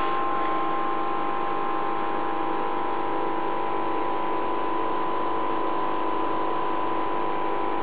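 Steady electrical hum holding a few fixed tones over an even hiss, unchanging throughout.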